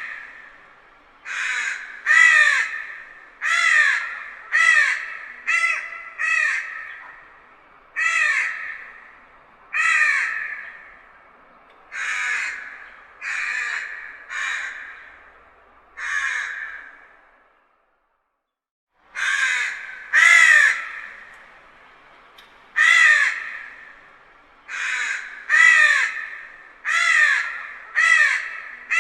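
Crow cawing over and over, one call about every one to two seconds, each call falling away at its end. A brief gap of total silence breaks the series about eighteen seconds in.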